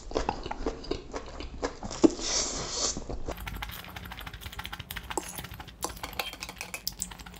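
Close-miked eating sounds of a man slurping and chewing forkfuls of noodles: rapid wet mouth clicks and smacks, with a short slurp about two seconds in.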